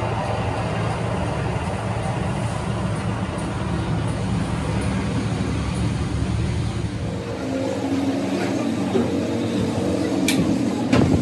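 Lathe motor running steadily as it turns a steel truck wheel rim. About seven seconds in the hum drops away to a lighter one, and a couple of sharp clicks come near the end.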